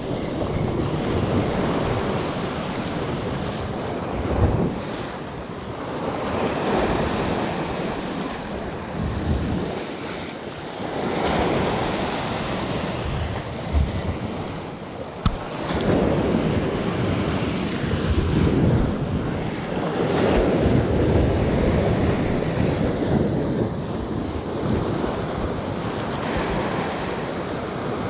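Sea surf breaking and washing against a rocky shore, swelling and ebbing every few seconds, with wind buffeting the microphone.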